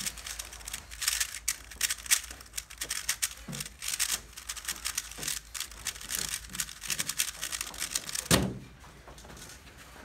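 A MoYu WeiLong GTS3 M speedcube being turned very fast, a quick run of plastic clicks and clacks. About eight seconds in comes a single loud thump as the solve ends: the cube is set down and the timer slapped to stop it.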